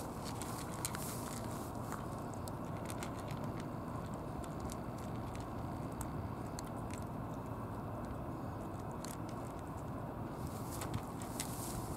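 Two cats crunching dry kibble from plastic bowls: scattered small crunching clicks, over a steady low background rumble.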